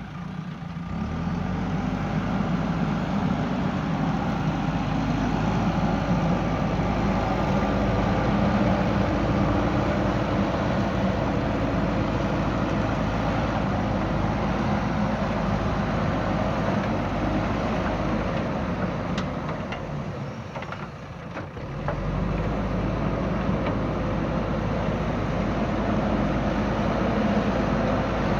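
JCB backhoe loader's diesel engine running steadily under working load, with a short dip in level about twenty seconds in.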